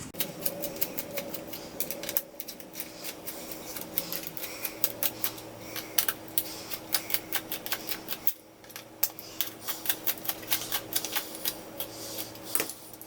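Rapid, irregular clicking of a Phillips screwdriver turning out the small screws on the back of an R33 Skyline tachometer gauge, over a faint steady hum.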